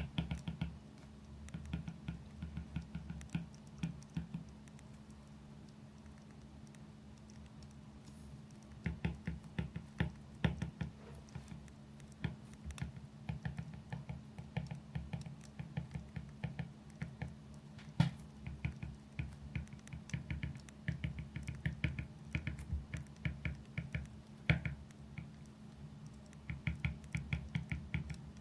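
Pen or pencil writing on paper at a desk: quick runs of small scratching taps with short pauses between strokes, over a steady low hum.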